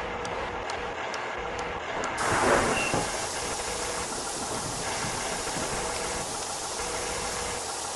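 Regular ticking, about three ticks a second, then a steady hiss that sets in about two seconds in with a brief louder swell at its start.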